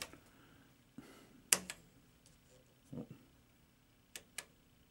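A few sharp clicks of the poker machine's player pushbuttons being pressed: one about a second in, a quick pair about a second and a half in and another pair past four seconds, with a soft low thud around three seconds.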